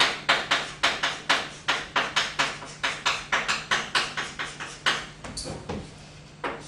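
Chalk writing on a blackboard: a quick run of sharp taps and strokes, about three a second, as characters are written, thinning out near the end.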